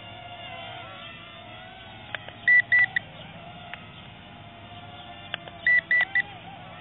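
Electronic beeper: three short high beeps, then three more about three seconds later, over a faint steady whine.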